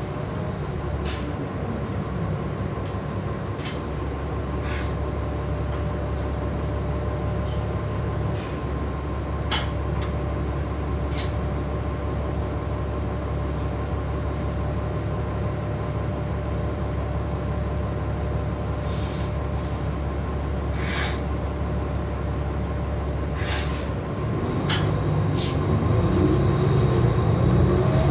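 Interior of a Nova LFS city bus on the move: its Cummins diesel engine running under steady road noise, with scattered clicks and rattles from the body and fittings. Near the end the engine grows louder as the bus pulls away or accelerates.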